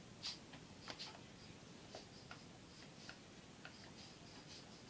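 Faint, irregular clicks and taps from a dog going for a toy held out to it, about seven in all, the sharpest about a third of a second in.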